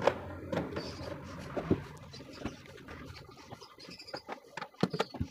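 A PVC pipe being pushed down into a plastic fan base through a metal pipe clamp. It makes a rubbing, scraping noise with many small scattered clicks and knocks of plastic being handled.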